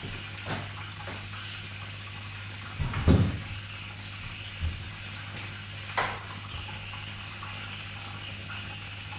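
Handling noises as a rider gets onto a road bike standing on training rollers: a heavy thump about three seconds in, a smaller knock, and a sharp click about six seconds in. A steady low hum and hiss lie underneath.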